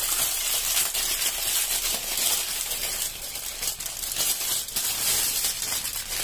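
Thin clear plastic bag crinkling as it is handled and pulled off a cloth carrying pouch, a continuous crackle throughout.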